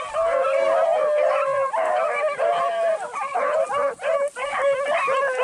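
A pack of beagles baying, several voices overlapping in a continuous chorus of howling bays. This is the cry of hounds running a rabbit's track.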